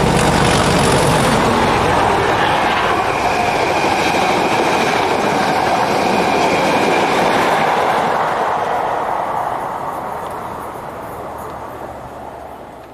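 Class 37 diesel locomotive passing close, its engine loud at first, then its train of coaches rumbling and clattering by on the rails. The sound fades away over the last few seconds as the train recedes.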